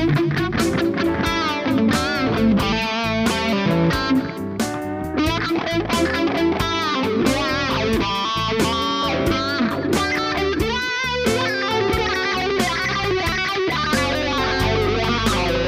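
Overdriven electric guitar, an Ibanez Jem through a Kemper profile of a 1959 Marshall Super Lead plexi, playing a bluesy lead with string bends and wide vibrato. Underneath runs a backing track with a steady drum beat and bass.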